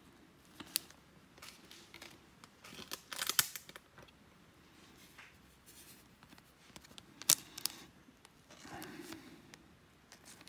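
Baseball trading cards being handled: card stock slides and taps, and a card is worked into a clear plastic sleeve, giving sharp clicks and a few short crinkly rustles.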